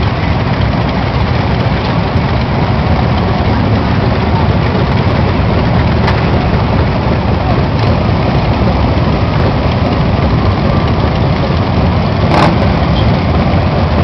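Motorcycle engines running steadily, heard from the seat of a cruiser among other bikes in a parking lot, with one short sharp click near the end.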